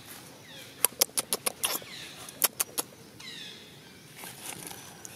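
Dry leaves crackling in a quick run of sharp clicks, about seven in a burst and then three more a moment later. Faint short falling chirps sound behind.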